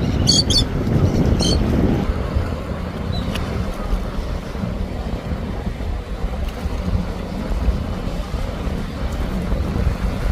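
Wind and surf noise with a few short high calls in the first two seconds. Then, from about two seconds in, the steady low rumble of a sport-fishing cabin cruiser running at speed through choppy water, with wind on the microphone.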